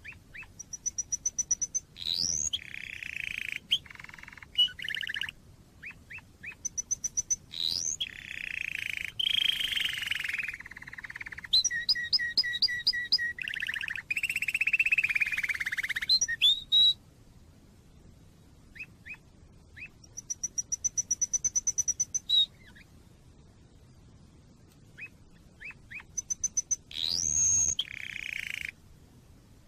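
Domestic canary singing in long, varied phrases: high fast trills, rapid runs of repeated notes, quick rising whistles and buzzy rolling notes. The song falls silent twice for a few seconds in the second half.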